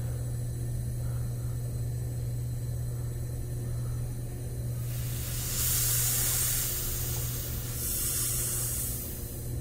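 Compressed air from an air-compressor line hissing into an aftermarket turbo wastegate in two bursts, one about halfway through lasting a couple of seconds and a shorter one near the end, as the air pressure pushes the wastegate piston open. A steady low hum runs underneath.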